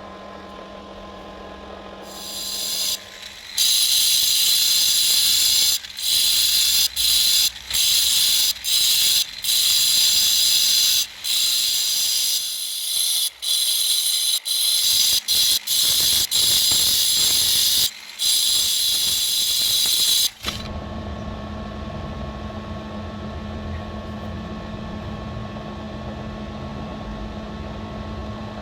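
A motor-driven stone polishing wheel hums steadily. About two seconds in, a gemstone is pressed against the spinning wheel and a loud, high grinding hiss begins. The hiss is broken by many short gaps as the stone is lifted off and put back. About twenty seconds in it stops, leaving only the motor's hum.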